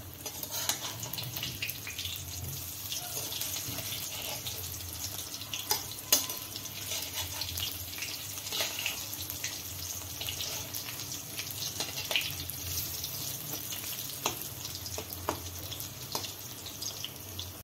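Corn pakoras deep-frying in hot oil: a steady sizzle full of small crackles as they crisp, with a few sharper clicks from a spoon turning them in the kadai.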